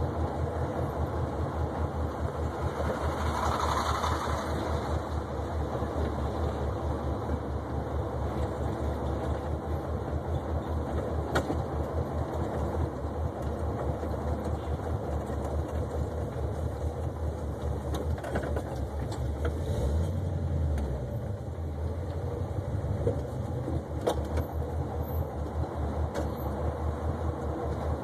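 1972 Oldsmobile 442's V8 engine running as the car is driven, a steady pulsing exhaust rumble heard from inside the car. A brief rushing hiss comes about four seconds in, and a deeper swell of the rumble around twenty seconds in, after which it runs a little quieter.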